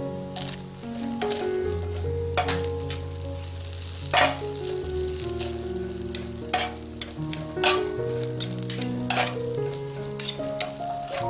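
Rice and kimchi leftovers sizzling on a hot cast iron griddle plate while metal spoons stir and scrape across the iron, with several sharp scrapes spread through. Soft background music with held notes plays underneath.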